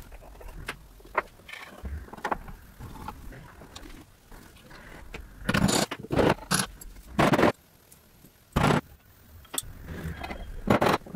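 Hand-work on the metal parts of an antique Singer sewing machine: small clicks and scrapes of a screwdriver turning steel screws. A handful of louder, short metal scrapes and clunks come around the middle, as the cast-iron handwheel is fitted and turned on its shaft.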